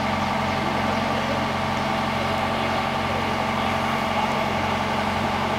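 Diesel engine of a truck-mounted crane running steadily as it hoists a maypole, an even engine hum with no change in speed.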